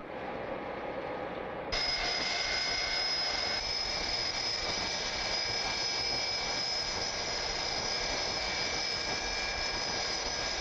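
Boeing 747SP's jet engines running on the ground: a steady rushing noise. About two seconds in it becomes louder and brighter, with steady high-pitched whining tones on top.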